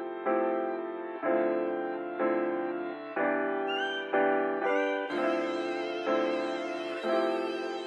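Background instrumental music: chords struck about once a second with a steady pulse, and a brighter layer joining about five seconds in.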